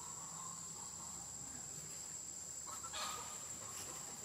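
Steady high-pitched drone of insects in the forest, with a brief animal call about three seconds in.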